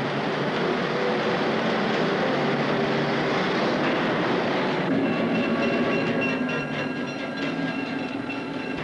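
A rail train of ingot-mould transfer cars, hauled by a switching locomotive, rolling along the mill track with continuous rail rumble and clatter. A steady high wheel squeal joins about halfway through.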